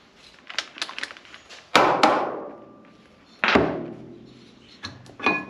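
Metal tools and parts handled on a wooden workbench: light clicks, then two loud knocks each with a short metallic ring as heavy metal pieces are set down, and a few more clicks near the end.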